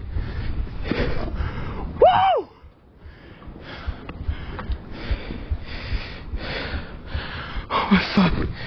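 A man breathing hard and fast from the exertion of landing a heavy fish, with a short voiced cry that rises and falls in pitch about two seconds in.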